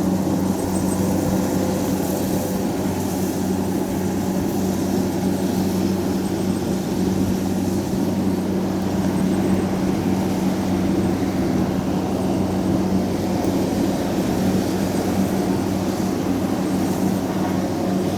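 Kubota DC70 combine harvester's diesel engine running steadily under working load as the machine harvests rice, a constant low drone.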